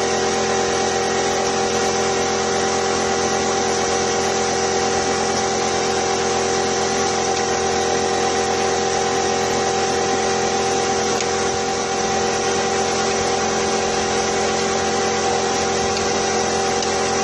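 Steady electric motor hum with several held tones and no change in level.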